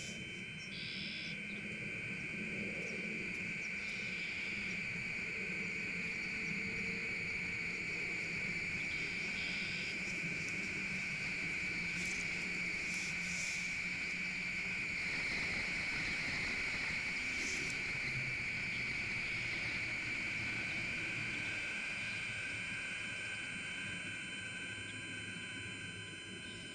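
Battery-powered electronic instrument holding a drone of several steady high tones over a lower note. The low note steps down about two-thirds of the way through, and a few brief high flourishes sound in the middle.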